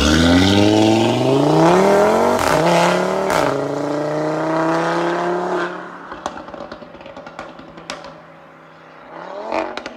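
Stage 1 Audi RS3's decatted five-cylinder engine accelerating hard away, its note climbing through two quick upshifts. It then fades into the distance, with a few faint cracks, and swells again near the end.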